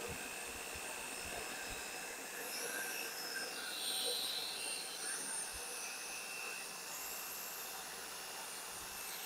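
Bench drill running steadily with a high whine and hiss, turning a homemade boring tool in a Honda Dio scooter cylinder. The sound swells slightly about four seconds in.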